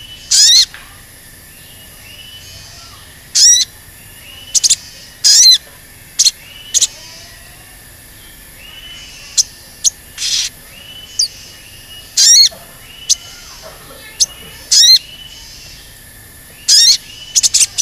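Olive-backed sunbird (sogon) giving short, sharp, high-pitched "cuit" calls, about fifteen of them at irregular intervals, some with a quick up-and-down zigzag.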